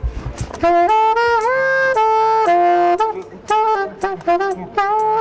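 Solo saxophone playing a melody of held notes. One note slides up into a long note about a second and a half in, and shorter, quicker notes follow.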